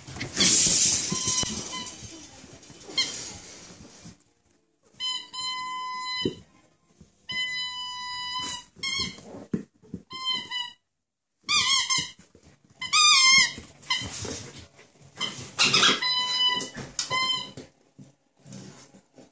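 A Samoyed puppy chewing a rubber squeaky toy: after a few seconds of loud scuffling, a string of squeaks begins about five seconds in. Some are held as steady high squeals and others wobble in pitch.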